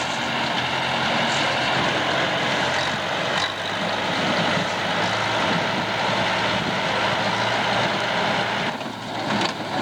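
Farm tractor and square hay baler running steadily in the field.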